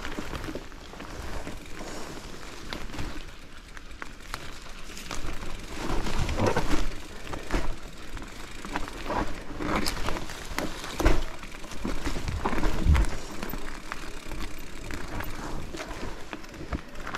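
Mountain bike riding over a rough trail: steady tyre noise on dirt with irregular clatter and knocks as it runs over bumps, busiest around the middle.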